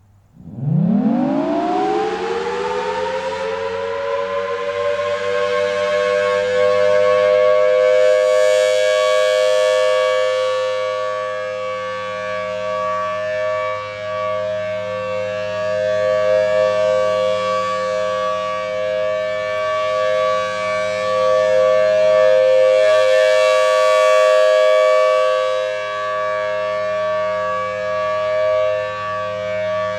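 Federal Signal Thunderbolt 1000T dual-tone rotating siren winding up from silence, its pitch climbing fast and settling within a few seconds into a steady two-tone chord: the full-alert signal. The sound swells and brightens twice, about a third of the way in and again past three-quarters, as the rotating head turns toward the microphone.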